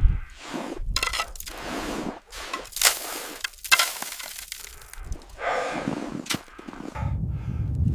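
Irregular sharp cracking and crunching, about half a dozen hits spread unevenly, the loudest a few seconds in.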